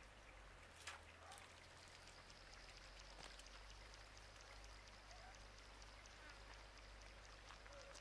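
Near silence: faint outdoor hiss with a few soft clicks, the clearest about a second in.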